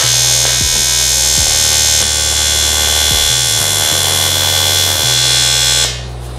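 Welding arc on 3 mm aluminium buzzing steadily, cutting off near the end. Background music runs underneath.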